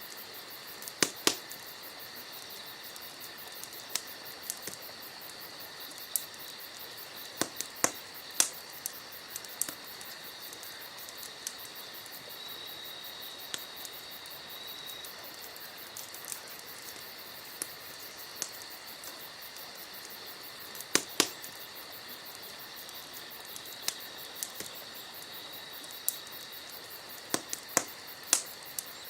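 Steady chirring of crickets in the background, with scattered sharp clicks and snaps, often two in quick succession, the loudest around a second in, near 8 seconds, about 21 seconds, and close to the end.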